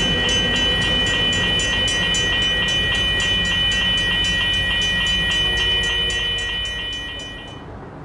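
Passenger train rolling past with a steady high whine and rapid regular clicking, about four clicks a second; the sound dies away near the end.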